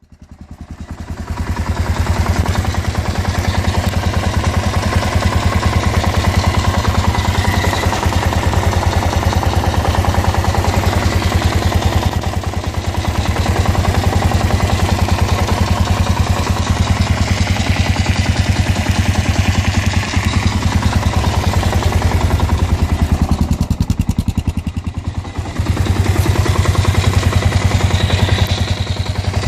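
Kawasaki KLR650's single-cylinder four-stroke engine running, with a knocking, grinding noise in the background in time with the engine. The noise appeared after the winter lay-up and its cause is unknown to the owner.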